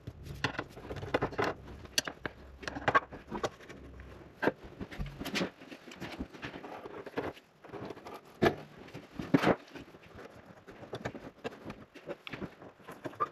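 Irregular clicks, taps and rustles of hands working a bare copper grounding wire and its small metal clamp hardware around a steel conduit, with a few sharper metallic clicks.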